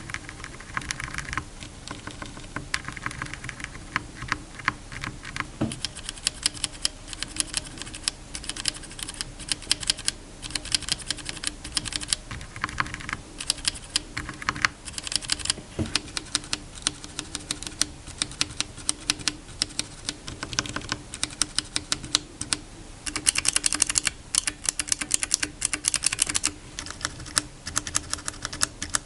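Bare Gateron mechanical keyboard switches (Red, Black, Blue, Brown and factory-lubed Cap Teal) being pressed in turn without keycaps, clicking in single presses and quick runs, with a dense flurry of presses near the end. It is a sound comparison of linear, tactile and lubed switches.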